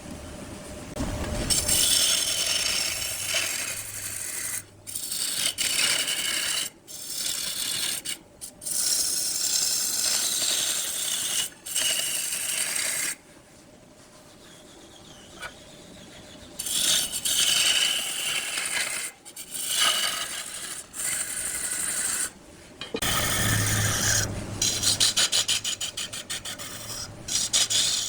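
Wood spinning on a lathe while a turning tool or abrasive rubs and scrapes against it, a rasping hiss in stretches that break off suddenly. It drops to a faint hiss for a few seconds near the middle.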